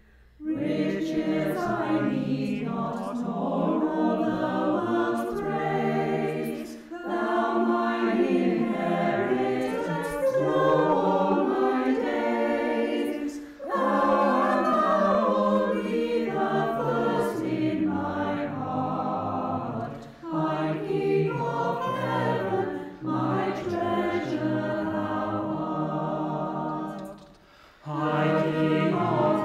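Church choir singing, line by line, with short breaths between phrases.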